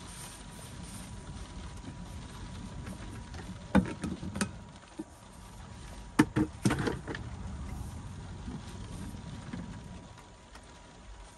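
Knocks and clatter of a Jetboil cooking cup and other cups being handled and put away in a cupboard: a few knocks about four seconds in and a louder cluster of knocks a little after six seconds, over a steady low rumble.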